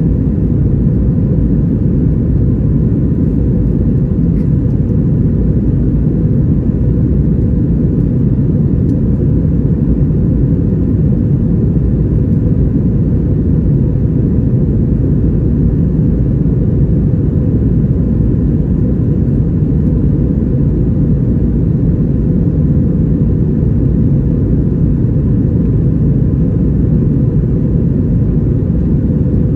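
Cabin noise of an Airbus A321-232 in flight after takeoff: a steady, deep rumble of its IAE V2500 engines and the airflow, with a faint steady whine above it.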